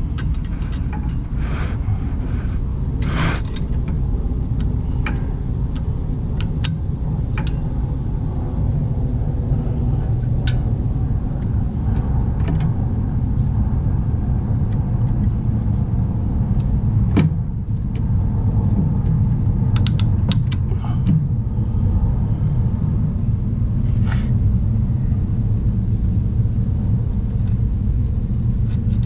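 A steady low rumble with scattered sharp clinks and knocks of metal parts and hand tools being worked.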